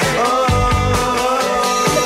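Background music with a steady beat and a bass line under a melody.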